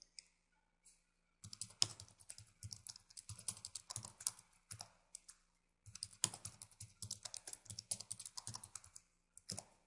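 Computer keyboard typing in two quick runs of keystrokes with a pause of about a second between them: a password being typed and then typed again to confirm it.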